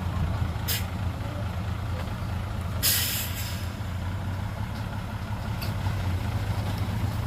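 Heavy diesel engine running steadily with a low drone, with a short hiss of released air under a second in and a longer, louder hiss about three seconds in, typical of a dump truck's air brakes.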